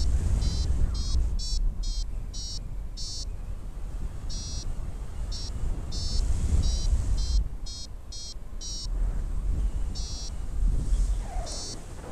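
Paragliding variometer beeping: short high electronic beeps, often about two a second with brief pauses, the climb tone that signals the glider is rising in lift. Wind rumbles on the microphone underneath.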